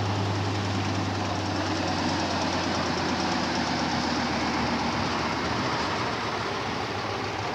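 Diesel engine of a competition trial truck running under load as it drives past close by, a steady low drone with loud mechanical noise over it; the low drone fades out about five seconds in.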